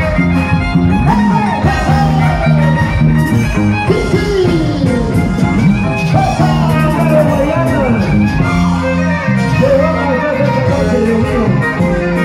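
Live Andean band music: a violin playing a sliding melody over the steady bass notes of a large Andean harp, amplified through a sound system.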